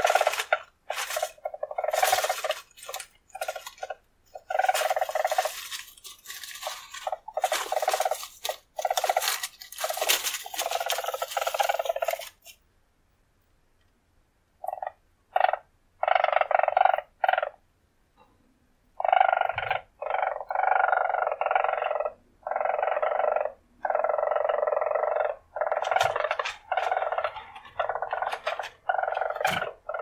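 Weasel purring: bouts of rapid, pulsed trilling broken by short pauses, with a silent break of about two seconds near the middle and shorter, choppier bouts just after it.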